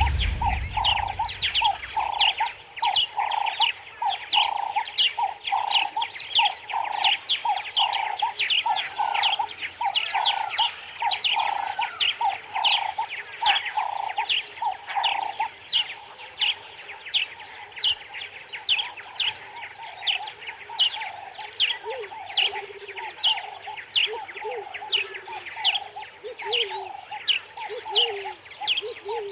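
Birds calling in a fast, steady series of short chirps, about two a second. A lower-pitched call joins in about two-thirds of the way through.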